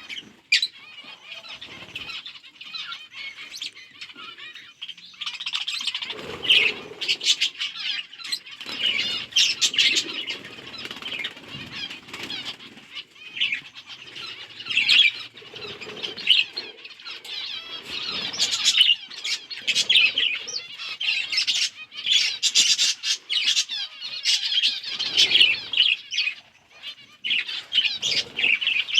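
A flock of budgerigars chirping and chattering continuously, with repeated bursts of wing flapping.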